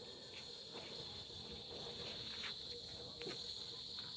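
Steady high-pitched insect chorus, a continuous even drone, with a few faint clicks or rustles.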